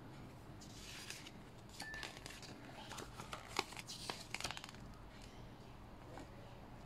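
A folded paper user manual being unfolded by hand: paper rustling and crinkling, with a run of short sharp crackles as the folds open, busiest between about one and four and a half seconds in.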